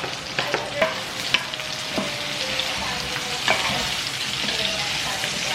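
Pork, garlic, onion and tomatoes sautéing in a frying pan: a steady sizzle while being stirred, with a few sharp clicks of the utensil against the pan.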